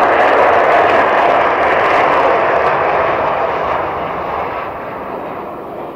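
Jet aircraft engines, a loud rushing noise that fades from about halfway through as the plane moves away, the higher pitches dying first.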